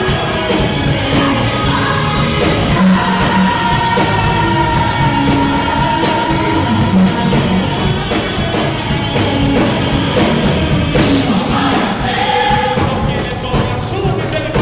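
Music with a singing voice, playing continuously.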